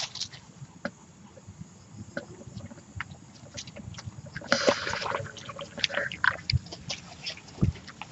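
Puppies eating and lapping from a steel bowl: irregular small clicks and slurps, with a short burst of rustling about halfway through.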